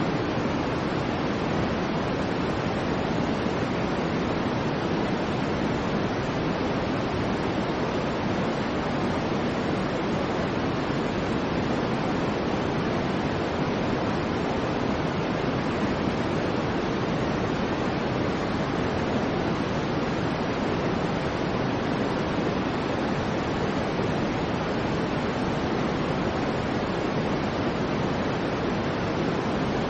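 Soft white noise for sleep: a steady, even hiss that never changes, fuller in the low and middle range than in the highs.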